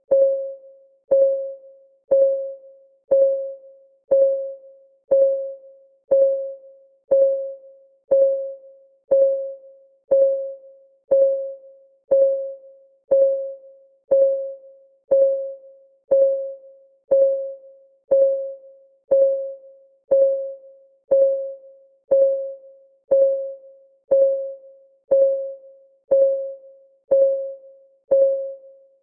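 Countdown timer's ticking sound effect: one tick each second, steady and even. Each tick is a short pitched ping that rings briefly and dies away.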